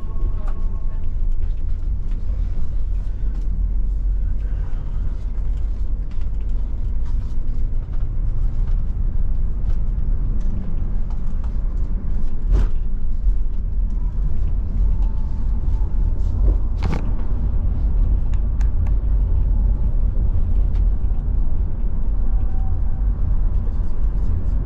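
Intercity coach running, heard from inside the passenger cabin: a steady low engine and road rumble, with two sharp knocks, one about halfway through and another a few seconds later.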